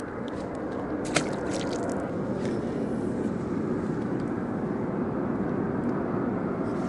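Low, steady rumble of a distant engine, slowly growing louder, with one short sharp click about a second in.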